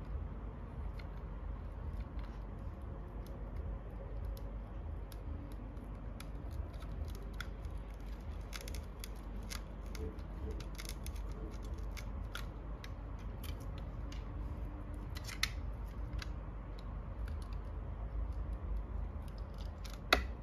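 Snap-off utility knife blade scraping and cutting the white insulation away from the copper core of a coaxial cable: a run of small, scratchy clicks and cuts, with one sharper click near the end.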